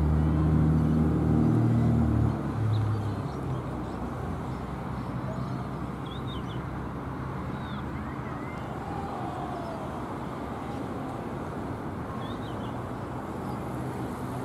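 An engine running close by, loud for the first two seconds or so and then dropping away, leaving a steady outdoor rush with a few faint distant shouts.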